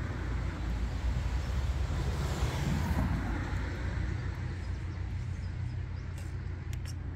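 Steady low outdoor rumble with a broad noisy haze, swelling and fading about two and a half seconds in; a few faint ticks near the end.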